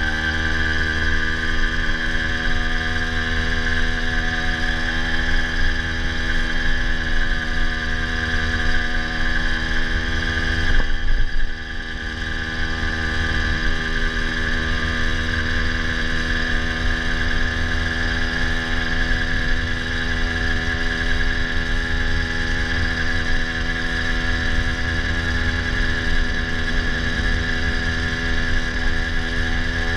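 80cc two-stroke motorized bicycle engine running steadily under way; its pitch rises slightly at the start. About eleven seconds in there is a brief louder rush, after which it is a little quieter. The engine is four-stroking, which the rider puts down to ignition timing that needs advancing after the cylinder was decked.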